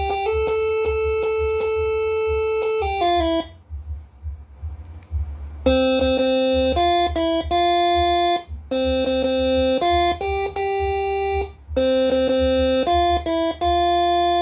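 Moreno MS5 six-trumpet telolet basuri air horn playing a melody in held chords of several notes at once, changing about once a second. It breaks off for about two seconds about three seconds in, over a steady low hum.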